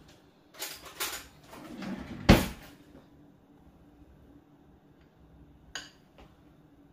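Kitchen handling sounds while batter is spooned out: a few scrapes and knocks, the loudest a single sharp knock about two seconds in, then a faint steady hum with two light clicks near the end.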